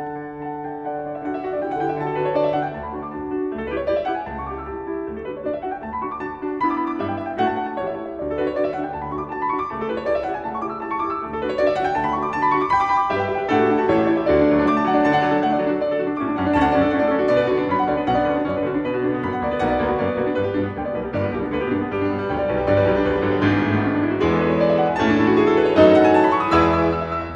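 Classical piano music, with quick upward runs repeated every second or two over a steady accompaniment, growing a little fuller and louder toward the end.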